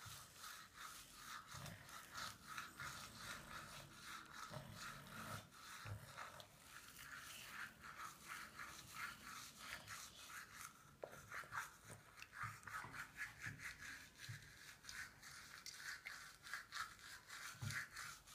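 Faint scrubbing of a child's manual toothbrush on teeth: quick, repeated back-and-forth strokes.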